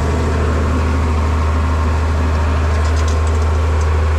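Tractor engine running steadily, heard from inside the cab as an even low drone.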